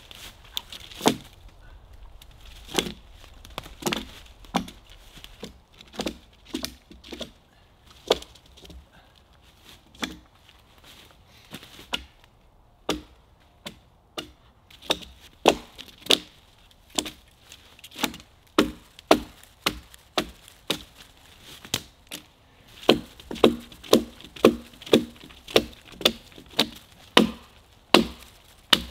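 TOPS CUMA Kage short sword, a 1095 carbon-steel blade, chopping the side limbs off a fallen log. A long run of sharp strikes into wood, about one a second at first, then coming about twice a second and louder in the last few seconds.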